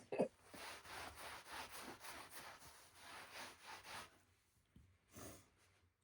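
Brush strokes raking quickly through a Ragdoll cat's long coat: a faint, dry rasping repeated several times a second that stops about four seconds in, with one more short stroke near the end.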